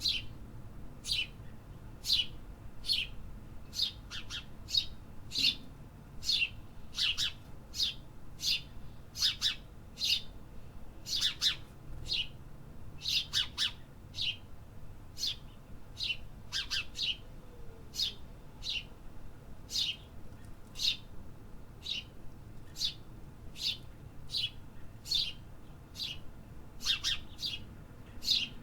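City birds chirping: short, sharp chirps that drop in pitch, repeated about once or twice a second and sometimes in quick pairs, over a faint low background rumble.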